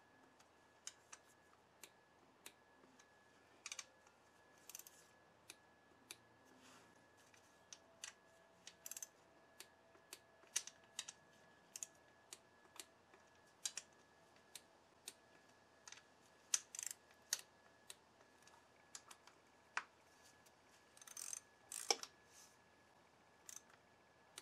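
Scattered, irregular clicks and light metal taps from a hand ratchet being worked on the clutch-cover bolts of a Honda VTX1800 engine, as the bolts are run down. A quick flurry of clicks comes near the end.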